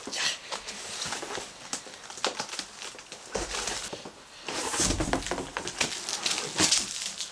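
Cardboard box flaps being pushed open and shrink-wrapped skateboard decks pulled out, with irregular rustling, scraping and crinkling of plastic and cardboard that grows louder about four and a half seconds in.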